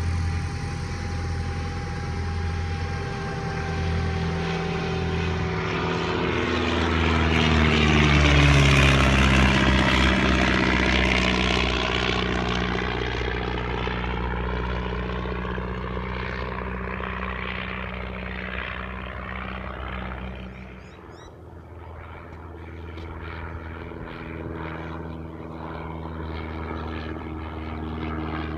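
Single-engine vintage light aircraft's piston engine and propeller flying past. The engine pitch falls as it goes by, loudest about eight seconds in, then settles into a steadier drone as the plane flies on.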